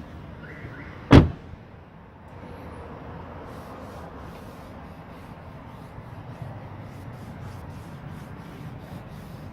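A single loud, sharp thump about a second in, then a steady low rumble from a BMW F30.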